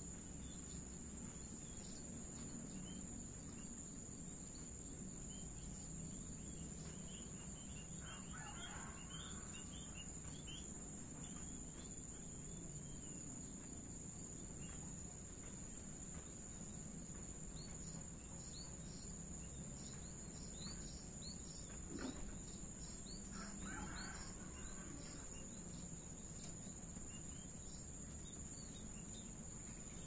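Crickets trilling in a steady high drone over a low rumble of distant traffic, with small birds chirping in quick runs. A rooster crows twice, about eight seconds in and again around twenty-three seconds.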